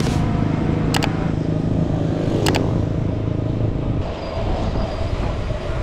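A motor vehicle running past close by on the road, its engine tone dropping away about four seconds in and leaving a steady rumble of wind and road noise on the action camera's microphone.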